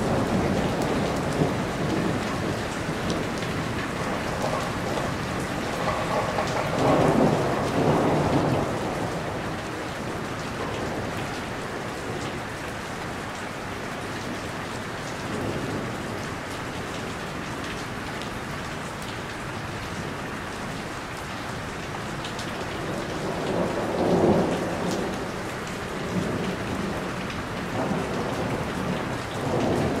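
Steady heavy rain falling on a roof. It swells louder and deeper for a couple of seconds twice: about a quarter of the way in and again about three quarters through.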